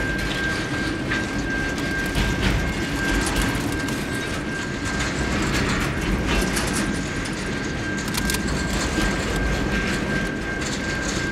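Freight train wagons rolling past at close range: a steady rumble of steel wheels on rail, with scattered clacks as the wheels cross the rail joints. A thin, steady high-pitched whine runs under it.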